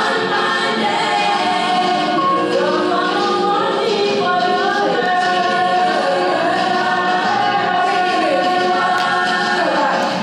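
Background music with several singing voices layered like a choir, playing steadily.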